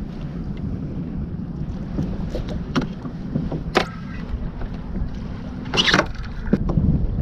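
Steady low rumble of water and wind around a kayak on open sea. A few sharp knocks of things being handled on the hull stand out, and a louder clatter comes about six seconds in.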